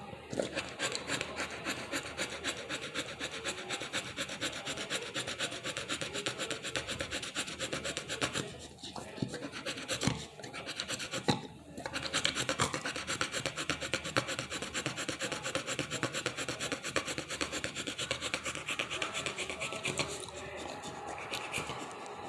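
A dog in labor panting heavily: a fast, rasping in-and-out of breath that breaks off twice for a moment around the middle and grows lighter near the end.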